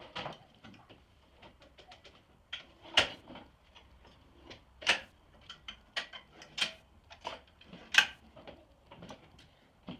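Metal parts of a folding table-saw stand being handled and adjusted: a string of light clicks and ticks with four sharp knocks spread through.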